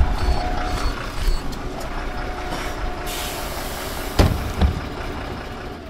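Neoplan N 4411 city midibus idling at a stop, with three faint short high beeps in the first second and a half. About three seconds in, compressed air is let out in a hiss lasting about a second, followed by two sharp thumps.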